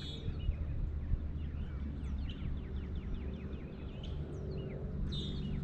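Songbirds calling over open water, including a quick trill of about ten short falling notes in the middle and brief higher notes at the start and near the end. Under them runs a steady low hum from the bass boat's electric trolling motor.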